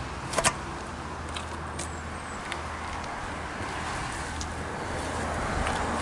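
Steady hum of road traffic, with two sharp clicks about half a second in and a few faint ticks after.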